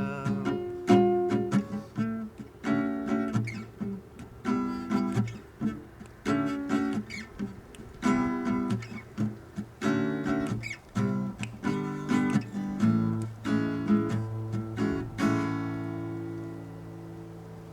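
Instrumental outro on strummed acoustic guitar: chords struck in a steady rhythm, ending about three-quarters of the way through on a final chord that rings on and slowly dies away.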